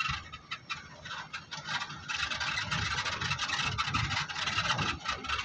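Safari vehicle driving, its engine running under a steady rush of tyre and road noise. The sound grows louder about two seconds in.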